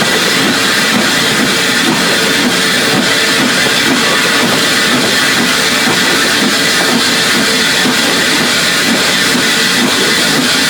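Rock music with a drum kit, loud and steady.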